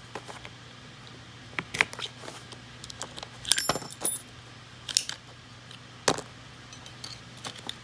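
Small metal Glock trigger parts clicking and clinking as they are handled: five or so separate sharp clicks, the one about three and a half seconds in followed by a brief metallic ring.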